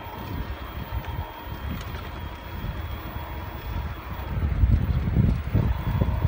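Wind buffeting the microphone of a moving cargo bike, an irregular low rumble that gets louder about four seconds in. A faint steady high whine runs underneath.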